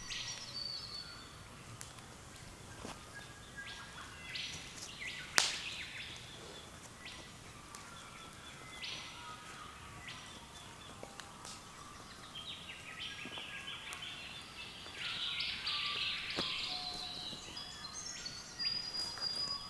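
Early-morning chorus of several birds calling and chirping over each other, busiest in the second half. A single sharp crack about five seconds in is the loudest sound.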